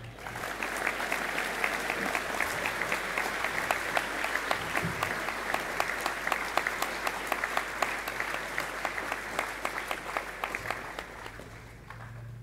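Audience applauding: dense, steady clapping that thins out and fades away near the end.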